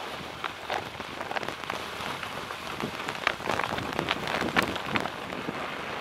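Bicycle tyres rolling over a snow-covered dirt road, a steady crunching crackle with many sharp clicks that thicken a little past the middle.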